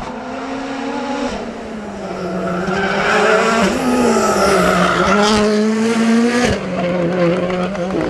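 Rally car engine revving hard as the car comes up to and through the bend. The pitch climbs and then drops off several times with gear changes and lifts, loudest in the middle as the car passes close. A couple of sharp cracks come through in the second half.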